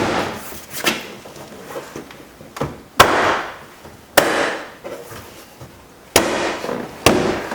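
A hand striking a Dodge Stratus front door panel to snap its retaining pins into the door: about six sharp smacks at uneven intervals, each trailing off briefly.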